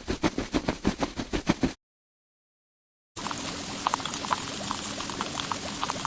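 Liquid at work while an air conditioner is cleaned: a quick rhythmic run of about eight strokes a second, which stops suddenly, then after a gap of silence a steady hiss with many small pops and crackles, as of spray or foam fizzing.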